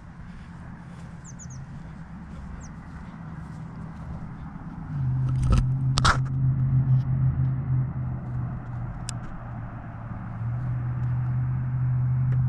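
A steady low engine hum that steps louder about five seconds in and again near the end, with a few small bird chirps in the first couple of seconds and two sharp knocks about six seconds in.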